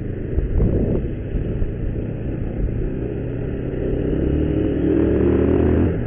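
Motorcycle engine running steadily while riding, heard from the bike itself. The engine grows louder from about four seconds in, as under more throttle, then eases off just before the end.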